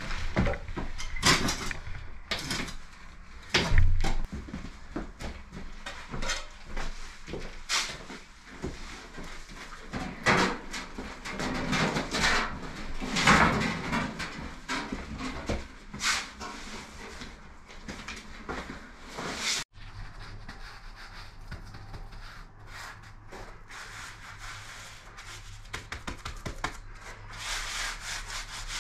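Scattered knocks, clatters and scraping of stones and tools being handled on a rubble-and-stone floor. After a sudden cut about two-thirds of the way through, a steady low hum with light scraping by hand.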